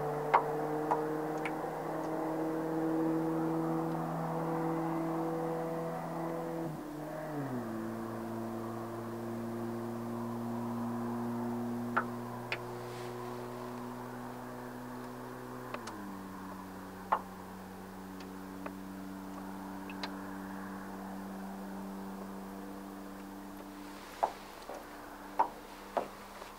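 A boat motor runs with a steady hum. Its pitch drops about seven seconds in and steps down again about sixteen seconds in. Scattered sharp clicks and taps sound over it.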